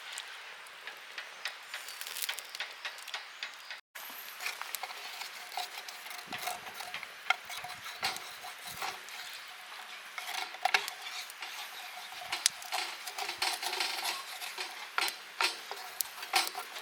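Light, irregular clinks and scrapes of a metal utensil against cookware, as in stirring or serving, with a brief break about four seconds in.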